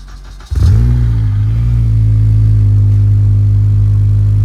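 Acura TSX's K24 four-cylinder engine starting about half a second in, flaring briefly as it catches, then settling into a loud, steady idle.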